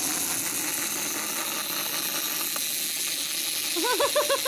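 Small plastic wind-up toys, among them a clockwork caterpillar, running across a table, their clockwork mechanisms whirring and rattling steadily. Near the end comes a quick run of short, high, bouncing chirps.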